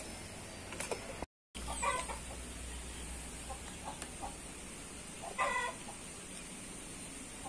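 A chicken clucking in two short bouts, about two seconds and five and a half seconds in, over a faint steady background.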